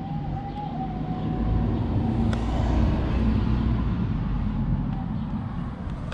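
A motor vehicle driving past, its engine and road noise swelling to a peak about three seconds in and then fading slowly.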